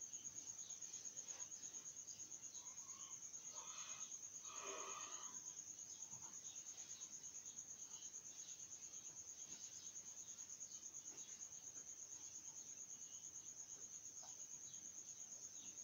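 Crickets trilling: a faint, steady, high-pitched pulsing trill that runs on without a break.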